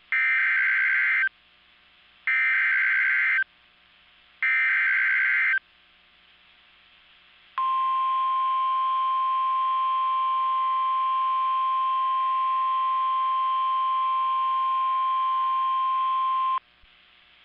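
Emergency Alert System alert opening: three one-second bursts of SAME header data, a warbling, screeching digital squawk. After a short pause comes a single steady NOAA Weather Radio alert tone of about 1050 Hz, held for about nine seconds and then cut off suddenly.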